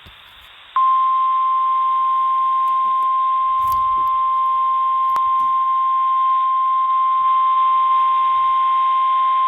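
NOAA Weather Radio's 1050 Hz warning alarm tone: a single steady, high-pitched tone that starts about a second in and holds without a break, over faint radio hiss. It signals that a weather warning message follows, here a severe thunderstorm warning.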